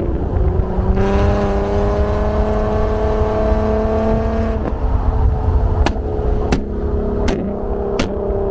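Infiniti Q50's 3.7-litre VQ37 V6 breathing through test pipes, a resonated Y-pipe and a Tomei muffler. It is revved and held, its pitch climbing slowly, then let off a little past the middle. As the revs fall, the flame-map tune makes the exhaust give four sharp pops, about two-thirds of a second apart.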